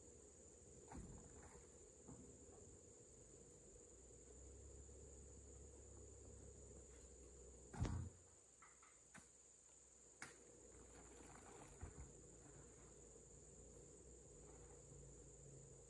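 Steady high-pitched insect chirring, with scattered dull thumps and knocks from oil palm fruit bunches being loaded onto a truck. The loudest thump comes about eight seconds in.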